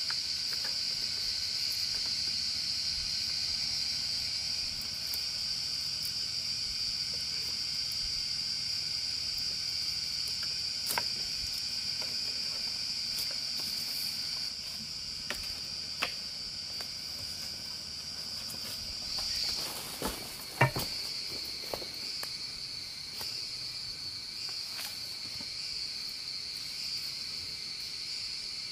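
Steady high-pitched chorus of forest insects, with a few sharp clicks, the loudest about two-thirds of the way through.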